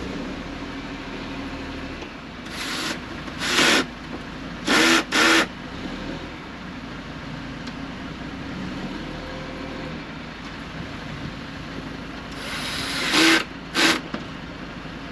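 Cordless drill driving screws into a scooter's plastic front panel, whirring in short spurts: four quick runs a few seconds in and two more near the end.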